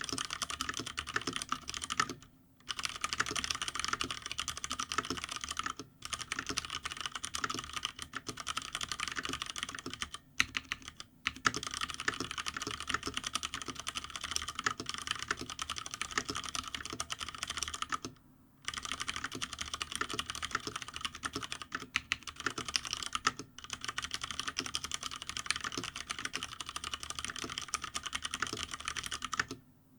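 Fast, continuous typing on a GTune GK993B SKY mechanical keyboard with stock, unlubed Cherry MX Brown switches, the keys clacking densely on a bare desk with no deskpad. The typing breaks off for brief pauses three times.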